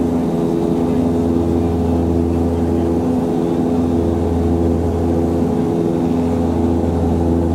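Cabin drone of an Antonov An-24's twin turboprop engines and propellers: a steady hum of several low tones that pulse rhythmically over a rushing noise.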